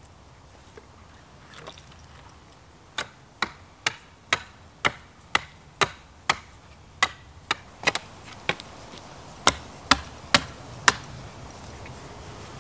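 A blade chopping into a wooden pole: sharp wooden strikes about two a second, starting about three seconds in, with a short pause before four louder strikes near the end.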